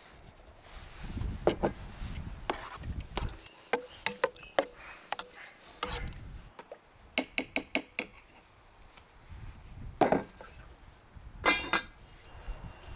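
Metal spoon clinking and scraping against an enamel pot while stirring a thick yogurt mixture. There is a quick run of light taps partway through and two louder ringing clinks near the end.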